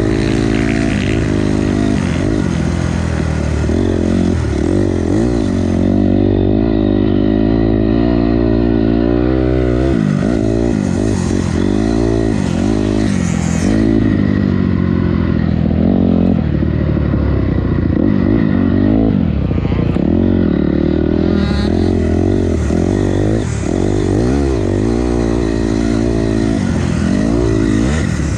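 Dirt bike engine revving up and falling back again and again as the bike is ridden hard around a motocross track, pitch rising through each gear and dropping off for corners.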